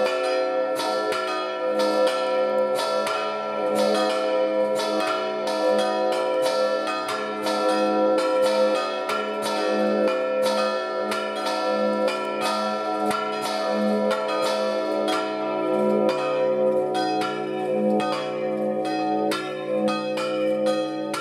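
Three bronze Marinelli-foundry church bells ringing together: the two smaller bells swung in full peal (distesa), their rapid strikes overlapping, with the big bell's toll joining as a deeper tone about two-thirds of the way in. The second bell has a large crack that spoils its tone.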